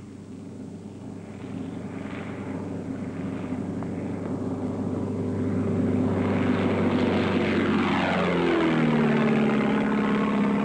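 Single-engine light aircraft's piston engine and propeller at take-off power, growing steadily louder as the plane takes off and comes closer. About eight seconds in, its note drops sharply in pitch as it passes close by.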